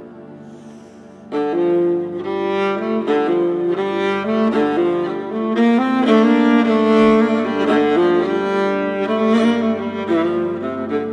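Instrumental background music of long held notes, soft at first and coming in fuller about a second and a half in.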